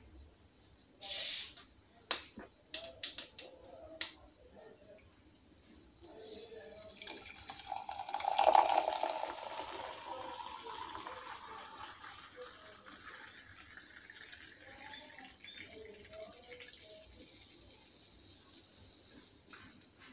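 A fizzy soft-drink bottle opened with a sharp hiss of escaping gas and a few clicks of the cap, then a dark carbonated drink poured into a glass, the pour loudest about eight seconds in. It is followed by a steady fizzing of bubbles and foam that slowly fades.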